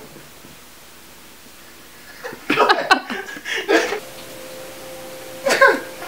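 A person breaking into short, breathy bursts of stifled laughter, a cluster starting about two seconds in and one more burst near the end.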